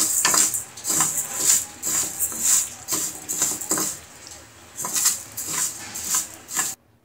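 Red lentils being stirred and turned in a frying pan with a spatula, a rattling scrape at each stroke, about two strokes a second. The lentils are dry-frying on low heat. The stirring cuts off suddenly near the end.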